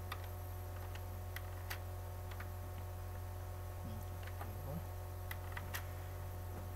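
Computer keyboard keys clicking one at a time, a few scattered keystrokes, over a steady low electrical hum.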